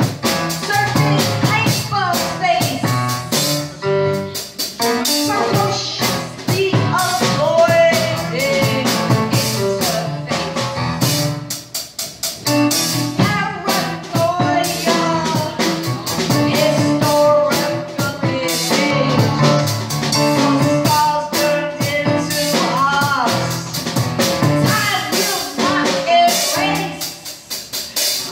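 Live drum kit with cymbals, played with sticks, backing a woman's voice vocalizing in long gliding lines into a microphone, with piano accompaniment underneath.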